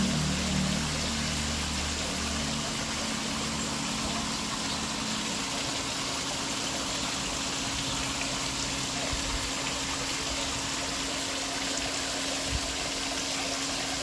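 Waterfall rushing steadily, an even hiss of falling water. A low hum fades out during the first few seconds.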